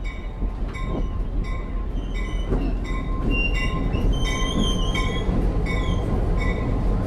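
Passenger excursion train rolling slowly past with a low diesel rumble. The locomotive bell rings steadily about twice a second, and the wheels squeal in a few high glides around the middle.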